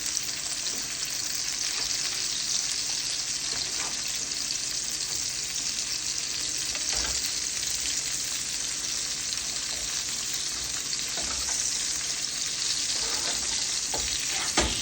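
Ribeye steak sizzling in a hot frying pan, a steady hiss, near the end of its cook. A light knock sounds near the end.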